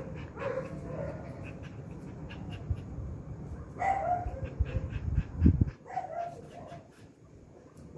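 Dogs giving short barks and whines at intervals, over a low rumble with a few thumps that stops about six seconds in.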